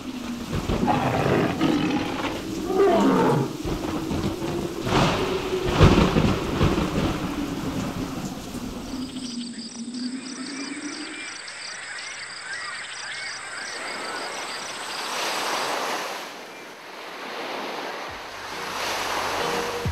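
Storm effects: thunder cracks and rumbling under a long, wavering low roar for about the first nine seconds. Then the storm drops away to high chirping and surf washing in twice.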